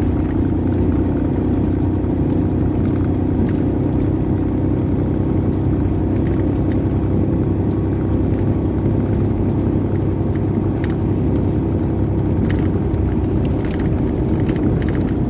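Steady engine and road rumble heard from inside the cab of a two-wheel-drive Ford Explorer driving over snow, with light rattles and clicks now and then.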